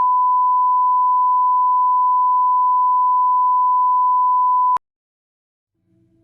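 A steady, high-pitched pure test tone of the kind used as a reference tone on a video leader. It holds at one pitch and level, then cuts off abruptly about five seconds in.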